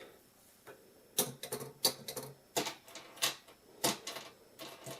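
A series of sharp, irregular clicks and taps as a screwdriver's tip knocks against a toy handcuff set.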